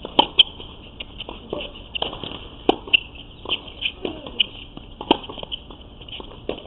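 Tennis rally on a hard court: sharp racket-on-ball hits and ball bounces, the loudest just after the start, with scuffing footsteps. A steady high-pitched chirping runs underneath.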